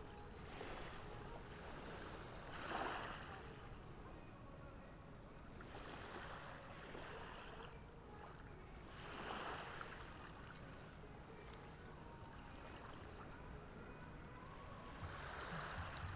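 Small ocean waves breaking and washing up the beach, a soft hiss that swells and fades every few seconds, four times, over a faint low rumble.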